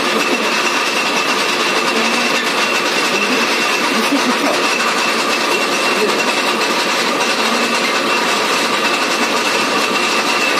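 Metal-turning lathe running steadily with a steel shaft spinning in it: even machine noise with a steady whine over it.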